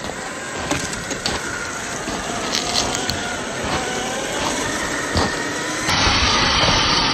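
Electric drive motor and gearbox of a Traxxas TRX-4 RC crawler whining up and down in pitch as it drives off-road, with scattered clicks of tyres on dirt and stones. About six seconds in, it gives way suddenly to a louder, rushing noise.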